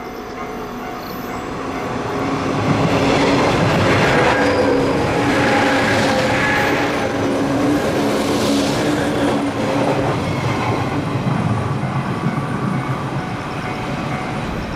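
JR 103 series electric train passing close by with a steady hum. The sound builds over the first few seconds, stays loud as the cars go by, then eases off near the end.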